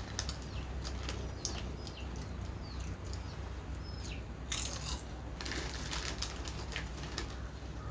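Foil potato-chip packets crinkling in the hands and chips being crunched, with a denser stretch of crinkling a little past halfway.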